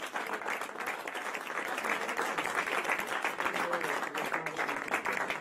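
A roomful of people applauding, with many hands clapping steadily.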